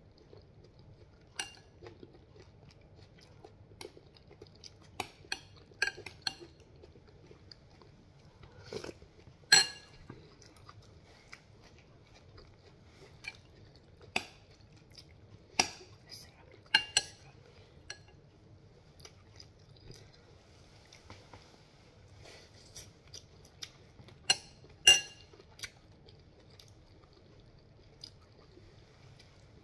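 Metal spoon clinking against a glass bowl now and then, a dozen or so short sharp clinks with the loudest about a third of the way in and near the end, with soft chewing between.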